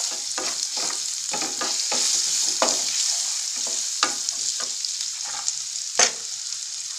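Chopped onion and ground spices sizzling in hot oil in a non-stick frying pan, with a flat spatula scraping and stirring them in quick repeated strokes; one sharper scrape about six seconds in.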